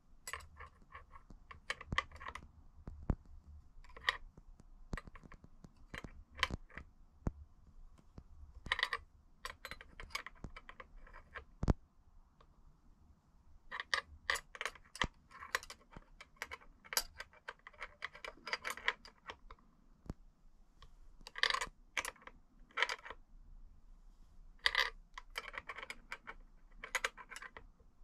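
Metal hand tools and bicycle linkage parts clinking and rattling in short bursts of several light metallic taps, with a few single sharp clicks between them.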